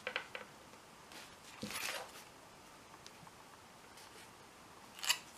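Light metallic clicks and a short scrape of small tools handled at a padlock as lock picking begins, ending in a sharper click near the end.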